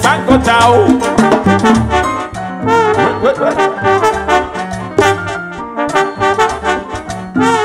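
Live salsa orchestra playing an instrumental passage between sung lines: trombones and trumpets carry the melody over percussion and bass in a steady dance rhythm.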